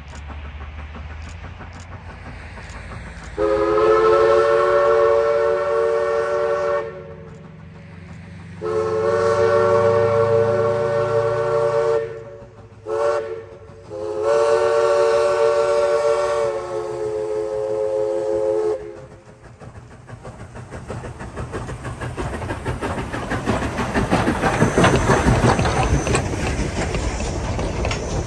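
East Broad Top #16, a 2-8-2 Mikado steam locomotive, blowing its steam whistle, several notes sounding together, in two long blasts, a short one and a long one: the grade-crossing signal. Afterwards the train's running noise grows louder as it approaches.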